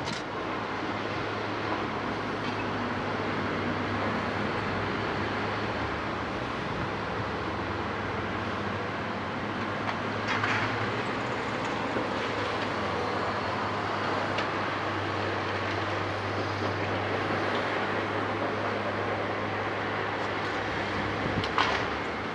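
Terex hydraulic crawler excavator's diesel engine running steadily under load with a low, constant hum while its sorting grab works in the roof beams. Two short cracks of roof timber break through, about halfway and near the end.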